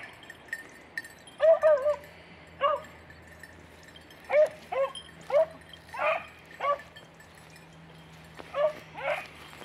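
Beagle baying while working a hare's line in the scrub: about ten short, high yelps at an irregular pace, some in quick pairs or threes.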